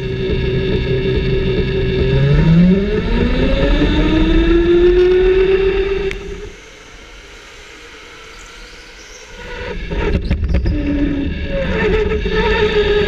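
Electric go-kart motor whining, rising in pitch as the kart accelerates, then falling away for a few seconds before a steady whine comes back. A few sharp knocks come about ten seconds in.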